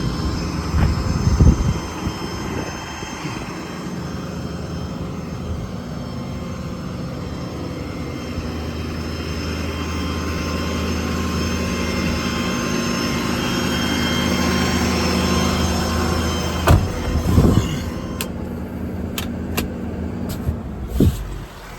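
The 2018 Ford F550's 6.7 Power Stroke diesel runs steadily, driving the Auto Crane hydraulic air compressor, with a drone that grows a little louder through the middle. A few sharp clanks come near the end, as the higher part of the sound drops away.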